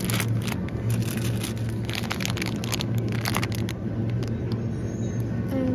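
A steady low hum under repeated crinkling of a plastic bag of potatoes being handled.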